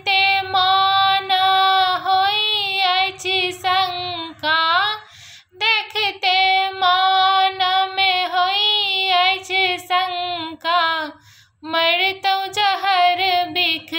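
A woman singing a Maithili Shiv bhajan without accompaniment, in long held notes with wavering ornaments. The line breaks off briefly about five seconds in and again about eleven seconds in.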